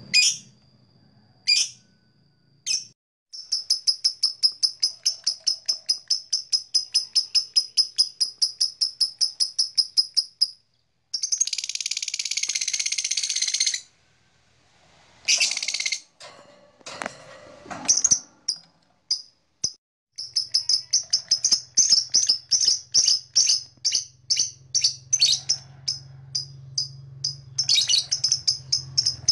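Blue masked lovebird chirping: long runs of rapid, evenly spaced high chirps, about four a second, broken midway by a harsh screech lasting about three seconds and a few scattered single chirps.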